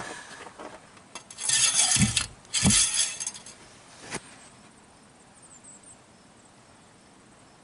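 Two short bursts of metallic clinking and scraping from handling, each ending in a low thump, then a single sharp click about four seconds in.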